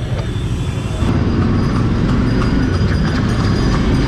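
Road and engine rumble from riding a Royal Enfield Himalayan motorcycle through traffic, steady and low, becoming louder after an abrupt change about a second in.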